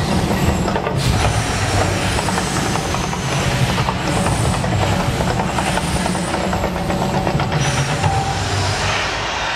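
The Mirage volcano eruption show: a loud, steady, dense rumble from the attraction's sound effects and fire bursts.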